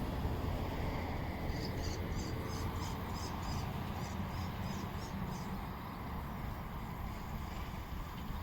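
A quick series of short, high chirps from a small bird, repeating for a few seconds, over a steady low rumble.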